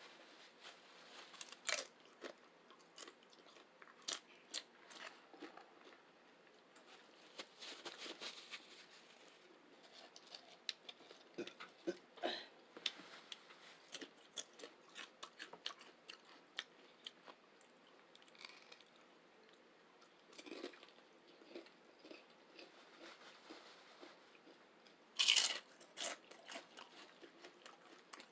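Close-up chewing and crunching of chips with vegetarian chili and beans: a steady run of sharp crisp crunches, with one loud crunch near the end.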